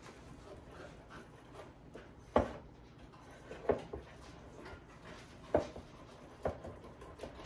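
Wire whisk beating a wet egg, milk and spice mixture in a small bowl, with a soft stirring rustle and four sharp clacks as the whisk strikes the bowl's side.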